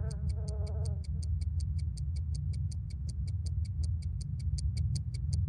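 Clock ticking, fast and even at about five ticks a second, over a steady low rumble. A wavering pitched tone dies away about a second in.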